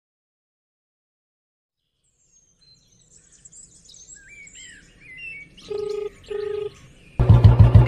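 Birds chirping, then a phone ringback tone: a double ring of two short, steady tones, heard while a call waits to be answered. Music comes in loudly near the end.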